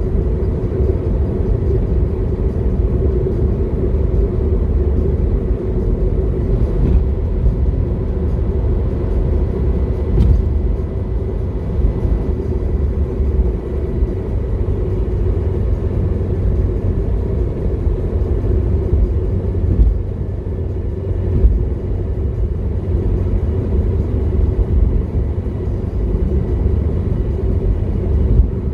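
Car driving at a steady speed, a continuous low rumble of engine and road noise.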